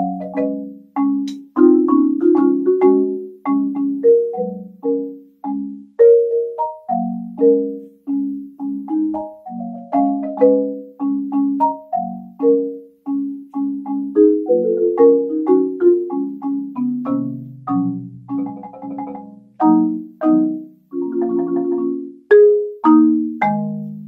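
Solo marimba played with mallets: repeated low chords struck under a higher line of single notes, each note dying away quickly. There are a few held, rolled notes past the middle and again near the end.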